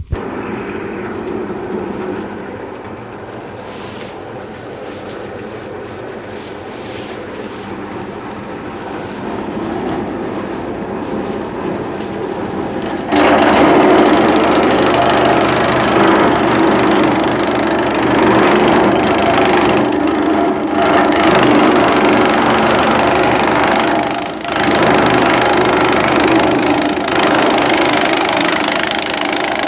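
Small Shimizu petrol engine driving a grass chopper, running steadily from the start. About 13 seconds in it turns suddenly louder and harsher and stays so, dipping briefly once near the 24-second mark.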